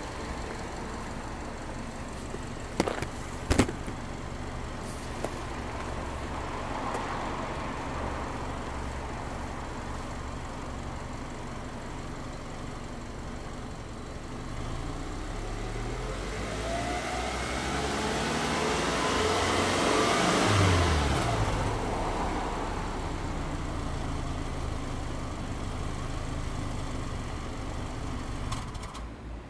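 Subaru Legacy Touring Wagon 2.5i's EJ25 flat-four boxer engine idling, heard at the tailpipe, then blipped once in neutral: the revs climb over about five seconds and drop back to idle. Two sharp knocks about three seconds in.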